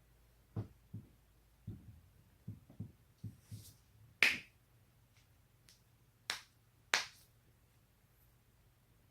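Joints cracking: a run of soft, low pops in the first few seconds, then sharper, brighter cracks, the loudest about four seconds in and two more near the six- and seven-second marks.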